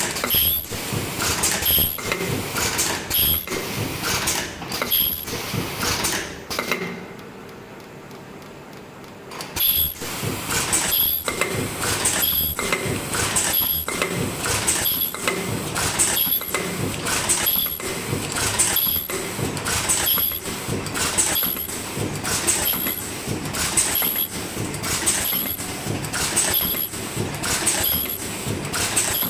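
Automatic face-mask earloop welding machine running, clacking in an even rhythm a little faster than once a second as it works through masks. About seven seconds in it goes quieter for about three seconds, then the clacking starts again.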